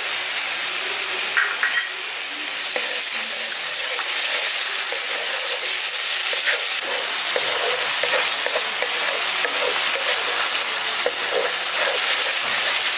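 Onion paste and freshly added ginger-garlic juice sizzling in hot oil in a black kadai. A wooden spatula stirs and scrapes against the pan, more busily in the second half.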